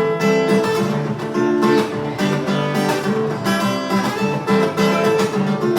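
Acoustic guitar strummed in a steady rhythm, chords ringing out: the intro of a song played live through a PA.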